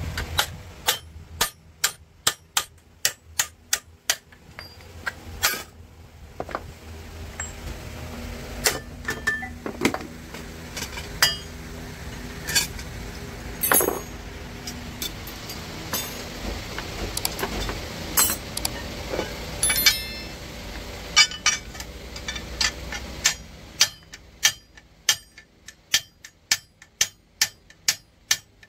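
Repeated hammer blows on metal, a few strikes a second at first, then scattered strikes over a low steady hum, then another quick run of strikes near the end.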